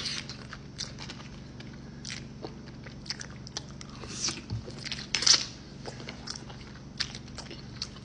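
Close-miked eating sounds: a man chewing chicken spaghetti and green beans, with many short wet mouth clicks and smacks. He takes a forkful of green beans about four seconds in, and the loudest chewing comes just after.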